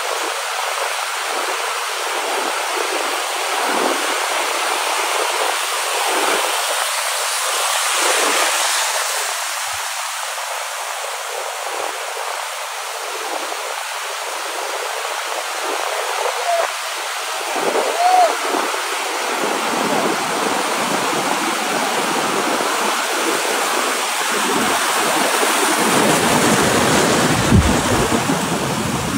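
Ocean surf: waves breaking and seawater rushing and churning in a steady noise, with a low rumble building in the last few seconds.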